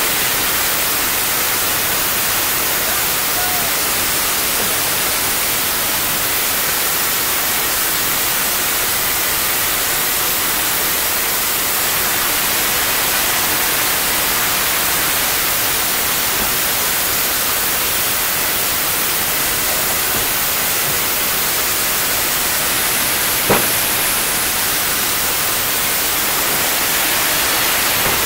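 Steady hiss of escaping steam from a YG-class metre-gauge steam locomotive under steam, with one sharp click about three-quarters of the way through.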